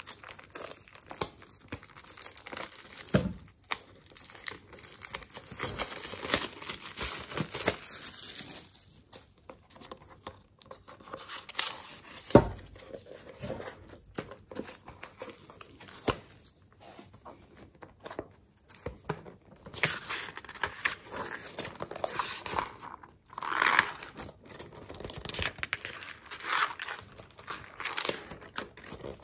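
Crinkling, rustling handling noises close to the microphone, with a sharp knock about 3 seconds in and a louder one about 12 seconds in.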